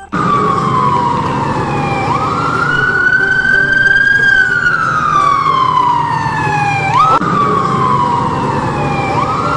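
Fire engine siren wailing: the pitch jumps up sharply and then falls slowly, several times over, above a low engine rumble.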